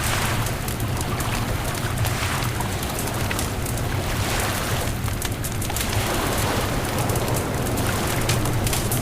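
Wood bonfire crackling, with frequent small sharp pops over a steady low rumble.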